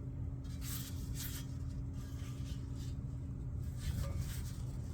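Steady low hum with one faint held tone, and a few soft, brief rustles; no grinder running.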